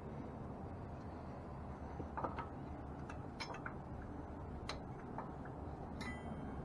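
Scattered light clicks and taps of metal tools and bike parts being handled, one near the end ringing briefly, over a steady low background rumble.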